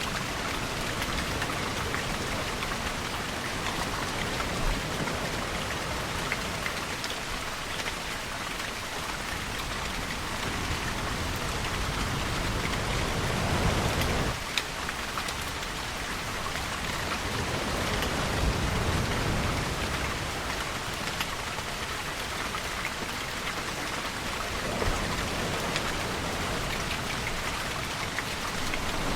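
Steady heavy rainfall with scattered sharp drop ticks. A low rumble swells up about halfway through and again a few seconds later.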